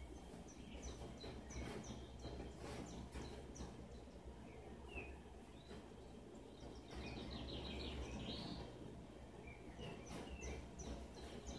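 Faint birdsong from a television nature programme: many short, quick chirps, busiest in the second half, over a low steady hum.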